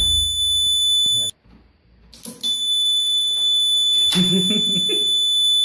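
Homemade door alarm's buzzer sounding one steady high-pitched tone. It cuts off suddenly about a second in and starts again about a second later, with a click as it does.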